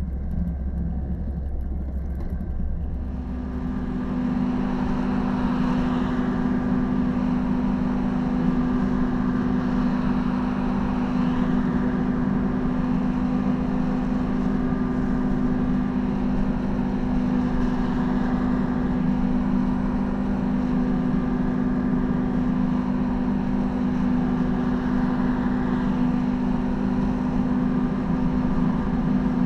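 Enclosed cabin motorcycle's engine droning steadily with road and wind noise, heard from inside the cabin while cruising at constant motorway speed. About three seconds in, a deep low hum gives way to a higher, steady drone.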